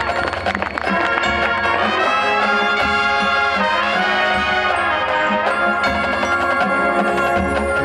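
High school marching band playing: brass section (trumpets and trombones) holding sustained chords over drum-line percussion.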